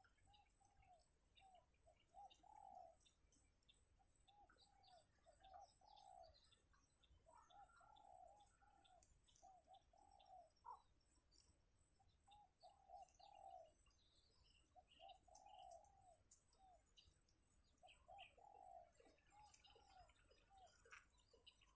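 Faint bird calls: short phrases of three to five low, arched notes, repeated every second or two, over a steady high-pitched pulsing whine.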